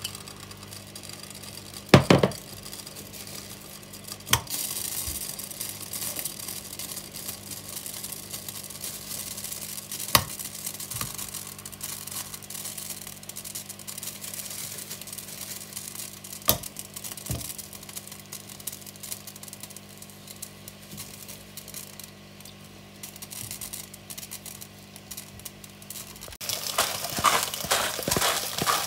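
Oil heating in a nonstick pot with a faint sizzle as peeled potato slices are laid into it, with a few sharp knocks against the pot over a steady low hum. Near the end a seasoning shaker is shaken over the potatoes in a quick run of rattling taps.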